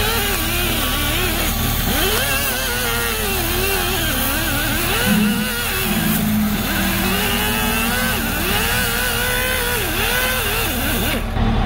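Air die grinder with a small abrasive disc cleaning the old gasket off a truck wheel hub's mating surface, so that new silicone will seal the leak. Its whine rises and falls in pitch as the disc bears on and eases off the metal, with a steady hiss, and it stops shortly before the end. A low steady hum runs underneath.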